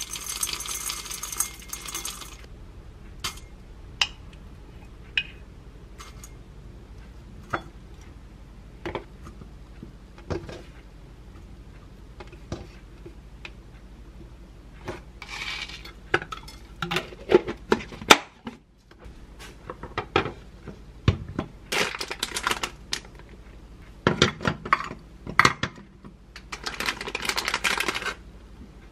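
Granola pouring from a glass jar into an enamel bowl, a dense rattle for the first couple of seconds. Then scattered light clicks and knocks as pieces of fig and banana are dropped into the bowl and dishes are set down, and a plastic snack wrapper crinkling near the end.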